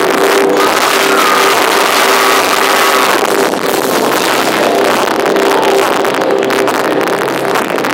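Post-hardcore band playing live and loud, distorted electric guitars and drums with a singer's voice over them in the first few seconds. The recording is harsh and clipped with almost no bass, as from a phone close to a loud stage PA.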